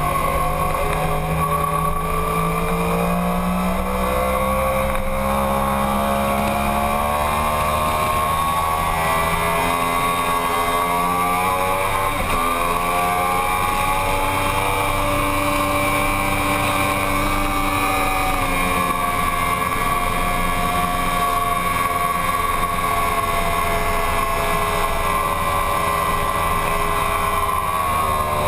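Yamaha sport bike engine running hard on track, heard from the bike itself, its note rising and falling with throttle and gear changes, with a brief break about twelve seconds in. A steady rush of wind noise runs underneath.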